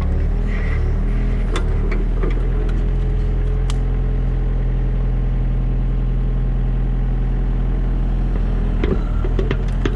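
Diesel engine of an earthmoving machine running steadily, with a few sharp metallic clanks and knocks from the working machine.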